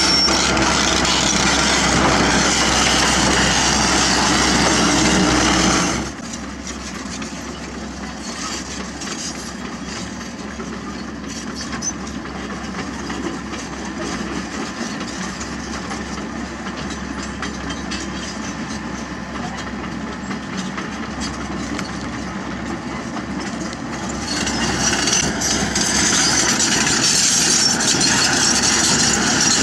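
Komatsu PC78US mini excavator's diesel engine running while the machine digs, with its hydraulics and bucket working. The sound drops sharply about six seconds in and comes back up near the end.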